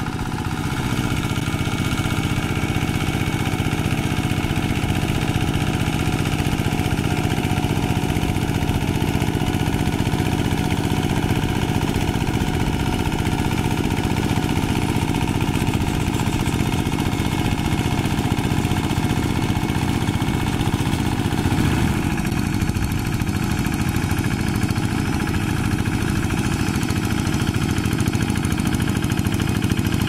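Single-cylinder diesel engine of a two-wheel hand tractor on steel cage wheels, running steadily under load as it pulls a plough through a flooded paddy.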